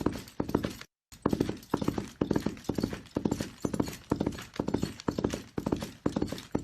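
A horse galloping: hoofbeats fall in quick clusters, about two strides a second, in an even rhythm. A brief dead silence cuts in just under a second in.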